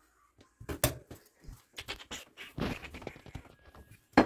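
Bread dough being cut and divided on a kitchen countertop: a scatter of knocks and thumps of a scraper and dough pieces on the counter, the loudest a sharp knock near the end.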